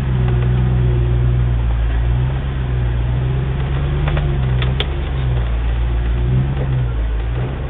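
Land Rover Defender engine running at low revs as it crawls over slickrock, its pitch rising and falling with the throttle. A few sharp knocks about four to five seconds in.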